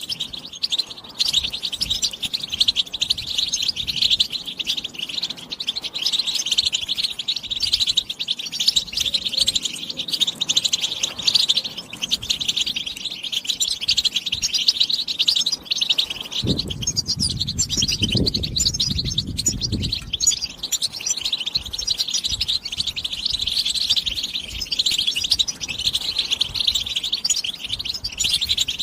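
European goldfinch singing a long, rapid twittering song without pause. A low rumble sounds for about three seconds just past the middle.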